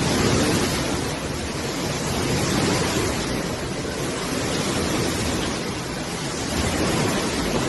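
A steady, loud rushing noise with no distinct events, cut off abruptly at the end.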